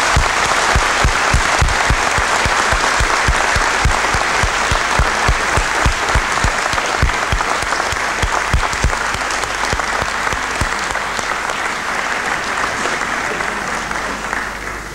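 Audience applauding steadily, with low thuds about three a second through the first nine seconds; the applause tapers off near the end.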